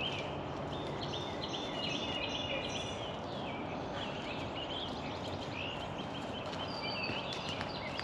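Songbirds chirping and trilling in the woods over a steady background hiss.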